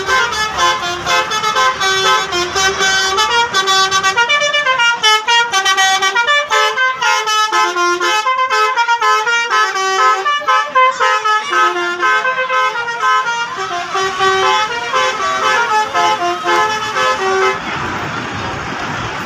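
Indonesian bus 'telolet' horn, a multi-tone musical air horn, playing a quick tune of short notes that step up and down. It stops near the end, leaving a haze of background noise.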